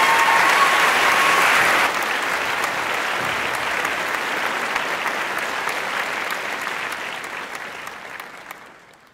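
Audience applauding after a musical performance, with a held high whoop over the clapping at the start. The applause drops a little after about two seconds, then fades out near the end.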